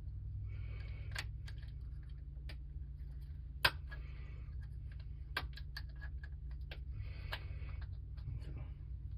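Small metal clicks and rattling from hand tools and wiring fittings being handled, with the sharpest click about three and a half seconds in, over a steady low hum.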